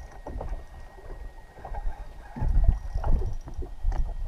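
Water lapping and slapping against the side of a small boat's hull, with irregular low rumbles, the strongest a little past halfway.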